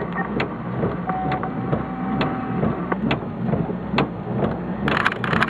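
Raindrops ticking irregularly in a heavy thunderstorm, over a steady low hum. A single steady tone sounds for about a second and a half, about a second in.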